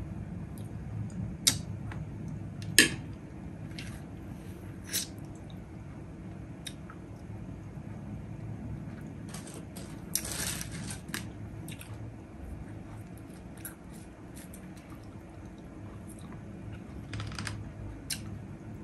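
Close-up eating sounds of a mouthful of chicken biryani being chewed, with a few sharp clicks of a metal spoon against the plate, the loudest about a second and a half and three seconds in. A steady low hum runs underneath.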